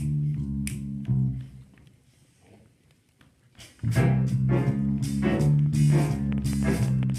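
Big band playing: an electric bass guitar line with finger snaps on the beat stops a little over a second in. After a short near-silent pause, the full band with saxophones comes in loudly with repeated accented chords.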